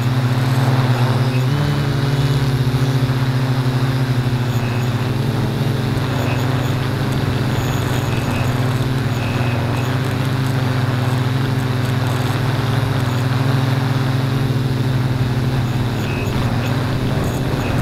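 Multirotor drone's motors and propellers humming steadily, heard up close from the aircraft itself. The pitch shifts briefly about a second and a half in.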